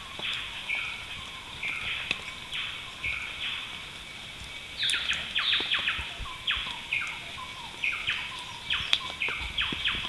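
Rainforest birds calling together over a steady high insect hum, a mix of short chirps and quick downward-sweeping notes that crowd together and grow louder from about halfway through.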